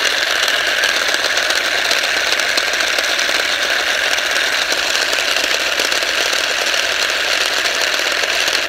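3D-printed single-stage planetary gearbox driven by its brushless motor, running steadily at full speed: a loud, even whirring grind from its straight-cut gear teeth, which are noisy. It stops suddenly at the very end.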